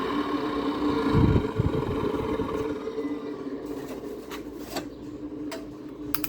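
2009 GE 10,000 BTU window air conditioner's rushing fan-and-airflow noise dying away over about three seconds over a steady hum, as the unit winds down. A low thump about a second in and a few sharp clicks near the end.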